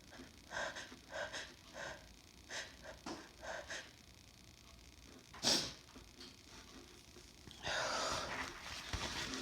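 A woman sneezing from snuffed chhinkni: a run of short, quick breaths, then one loud, sharp sneeze about five and a half seconds in, followed near the end by a longer breathy rush of air.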